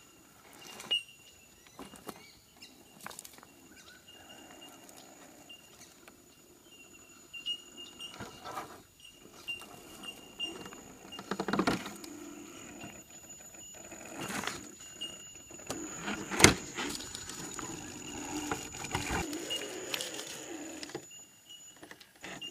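1/10-scale Axial SCX10 RC rock crawler with a Novak Ballistic 18.5-turn brushless motor crawling over boulders: a faint steady high whine of the electric drive that swells and fades with the throttle, with scattered knocks, clicks and scrapes of tyres and chassis against rock; the sharpest knock comes about two thirds of the way through.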